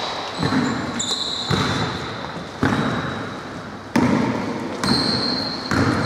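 Basketball bounced on a wooden gym floor at about one bounce a second, each bounce echoing through the hall.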